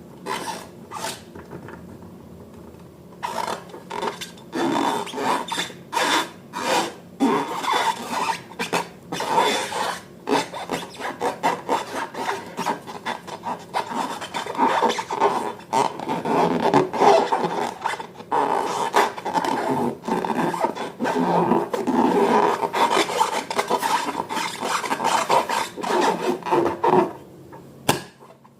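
Slime being mixed and worked: quick, irregular rubbing and scraping strokes, nearly continuous from about three seconds in until shortly before the end.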